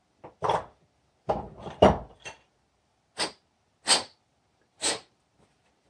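Metal workpiece handled at a bench vise, with a loud clunk about two seconds in as it comes out of the jaws, then three short puffs of breath blown through the freshly tapped spark-plug piece to clear metal shavings from its thread.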